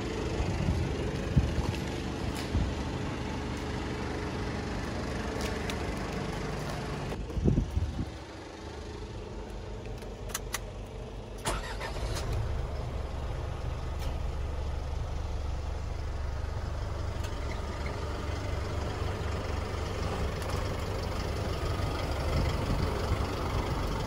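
Isuzu NLR 200's 150 hp diesel engine idling steadily. The sound changes about a third of the way in with a brief louder burst, and a few clicks follow.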